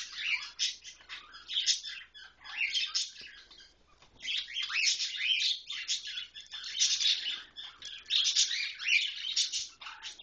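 Several newly hatched cockatiel chicks cheeping in a busy, overlapping chorus of high-pitched peeps, with a short lull about three and a half seconds in.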